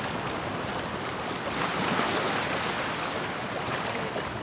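Sea waves washing in: a steady rushing noise that swells about two seconds in and eases off again.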